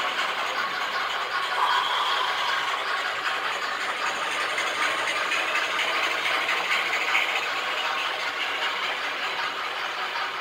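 Model trains running on the layout's track: a steady rolling rattle of metal wheels on rail, with the hum of the locomotives' motors.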